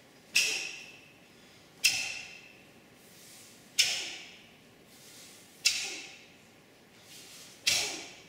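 Five sharp snaps about two seconds apart, each ringing out in the echo of a large hall: the taekwondo uniform cracking as each technique of the pattern is snapped out.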